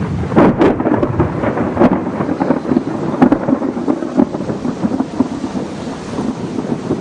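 Storm: a loud, uneven low rumble of wind on the microphone and thunder, with several sharp cracks, most of them in the first half.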